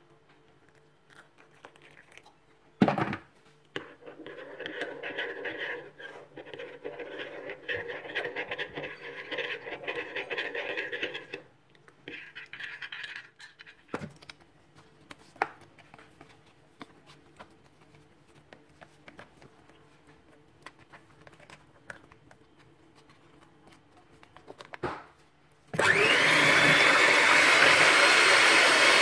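An electric hand mixer starts about 26 seconds in and runs steadily, its twin beaters whipping cream in a plastic bowl; it is by far the loudest sound. Before it there are quieter kitchen handling noises: a sharp knock about three seconds in, then a stretch of faint rattling noise.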